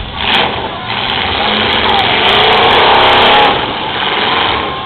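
Demolition derby car engines revving hard, building up over the first couple of seconds to a peak a little past the middle, then easing off.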